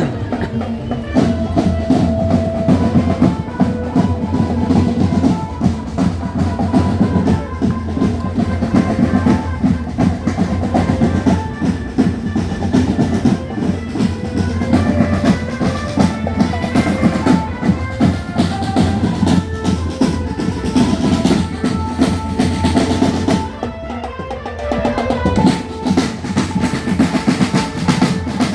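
Marching drum band playing a fast beat on snare and bass drums with drum rolls, a melody running over it. The playing drops back briefly near the end, then picks up again.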